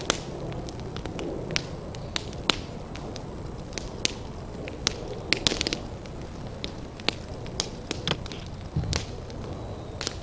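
Burning thatch crackling and popping, with sharp, irregular snaps and a quick cluster of them about five seconds in, over a steady low rumble.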